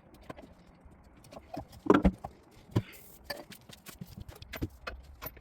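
Irregular clicks, knocks and clinks of hand tools and metal parts being handled while a motorbike is taken apart, with a louder clunk about two seconds in.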